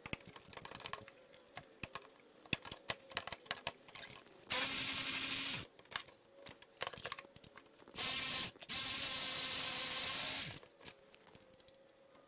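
Ratchet wrench loosening the power steering pump bolts: a run of quick ratchet clicks, then a small power-tool motor spinning in three steady bursts, about a second, half a second and two seconds long, with more scattered clicks between them.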